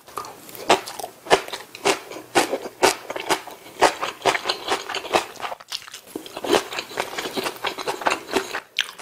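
Close-miked eating: a man chewing a mouthful of napa cabbage kimchi with other Korean side dishes, with irregular crisp crunching bites and chewing and a brief pause about halfway through.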